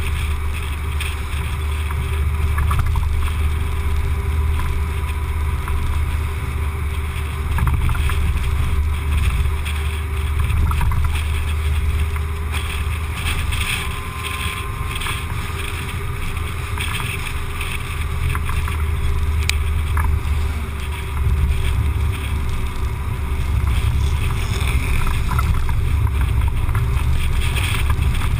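Steady low rumble of wind buffeting and road noise picked up by a car-mounted GoPro HD Hero while the car drives along, with engine and tyre noise underneath.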